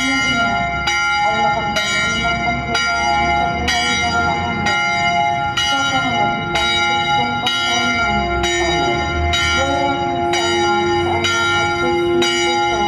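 Church bells ringing in a steady stream, about one and a half strikes a second, each strike ringing on into the next. A voice is heard faintly underneath.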